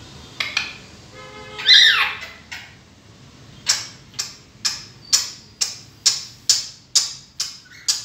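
African grey parrot vocalizing: a short whistled call that slides upward, then a run of about ten sharp clicks, evenly spaced at about two a second.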